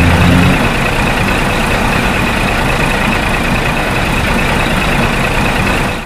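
Heavy truck engine running with a steady hiss; the low engine note fades about half a second in, and the sound stops abruptly at the end.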